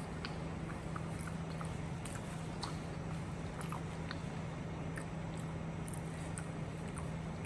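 Close-miked chewing of a breaded, fried risol mayo, with small wet mouth clicks scattered through, over a steady low hum.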